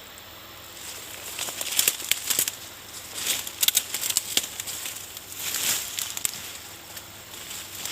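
Loose rock and soil crunching and clattering in irregular crackles as heavy equipment digs and moves earth, starting about a second in.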